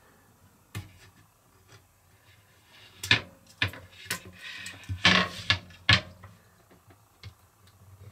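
Backing strips being peeled off double-sided tape on a wooden cleat: a few short, scattered rips and rustles, with the wood being handled on the countertop.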